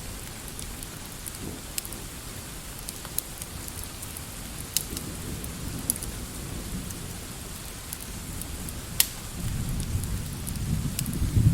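Steady rain with scattered sharp crackling pops, and a low rumble of thunder swelling up about nine seconds in.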